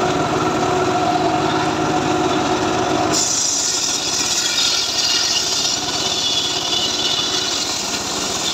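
Homemade engine-driven circular saw bench ripping a trembesi log: for about three seconds the blade is in the wood and the engine runs under load with a steady tone. Then the cut ends abruptly and the blade spins free with a bright high hiss.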